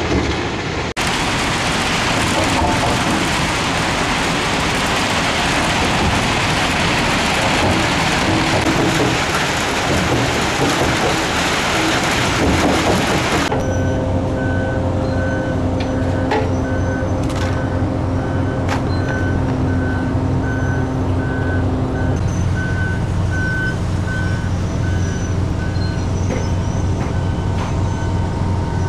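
Iron ore crushing and screening plant running: a loud, dense rumble of machinery and ore on the crushers, screens and conveyors. About halfway through it changes to a steadier machine hum with a high beep repeating regularly, a reversing alarm on a mobile machine.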